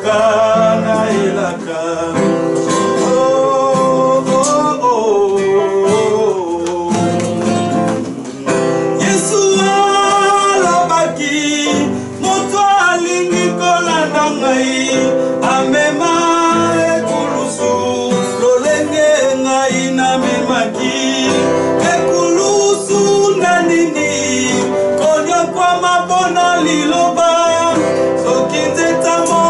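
A man sings a melody while playing an acoustic guitar.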